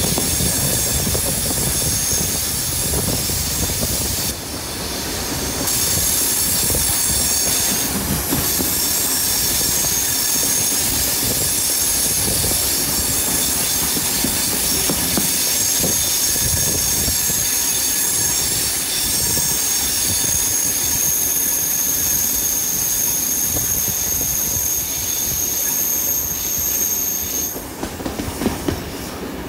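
Passenger train running along the track, the carriage wheels squealing against the rail on a curve: thin, high steady squeal tones over the rumble of the wheels. The squeal drops out briefly about five seconds in and stops near the end as the track straightens.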